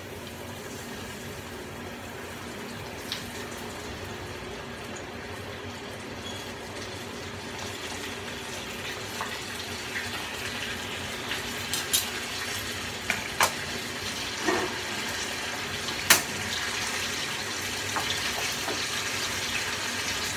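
Chicken pieces frying in hot oil in a pot: a steady sizzle that slowly grows louder as more pieces go in. Metal tongs clink sharply against the pot a few times, loudest about 16 seconds in.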